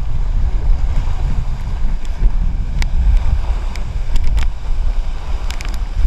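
Rushing, splashing water of a river tube ride heard close on the camera's microphone: a steady low rumble with a few sharp clicks.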